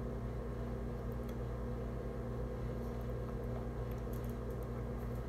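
Room tone: a steady low hum with a faint hiss over it, and a few faint clicks about four seconds in.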